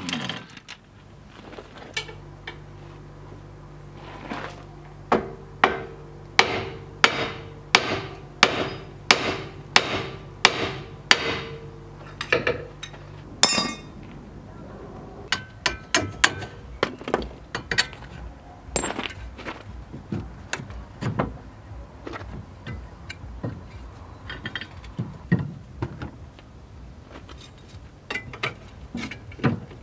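Hammer blows on steel car suspension parts: a steady run of sharp strikes, nearly two a second, then scattered clinks and knocks of tools on metal.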